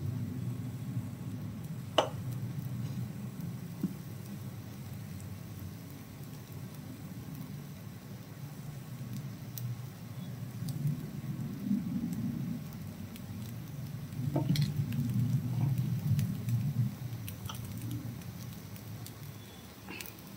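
Batter sizzling faintly in the oiled wells of a paniyaram pan over a steady low rumble, as spoonfuls of sorghum batter are poured in. A sharp tap of the ladle against the pan comes about two seconds in, and another about two-thirds of the way through.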